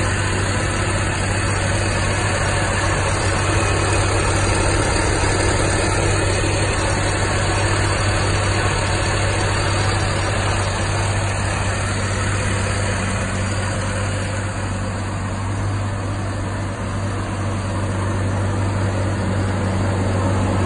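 A 1974 Chevrolet pickup's straight-six engine idling steadily, an even low hum.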